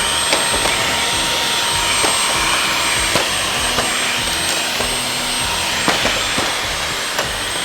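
Dyson V15 cordless stick vacuum running steadily with a high, thin whine, with scattered small clicks as its nozzle works over a Roomba.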